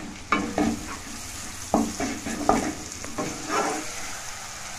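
Chopped onion, garlic and ginger sizzling in butter and oil in a kadai while a spatula stirs them, scraping and knocking against the pan several times.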